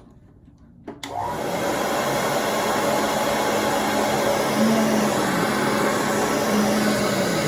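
Hair dryer switched on about a second in and running steadily, blowing into a cut plastic water bottle used as a hair curler.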